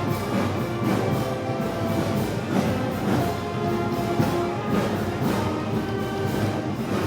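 Festival band music: wind instruments holding notes over a steady drum beat, typical of a Moros y Cristianos street band.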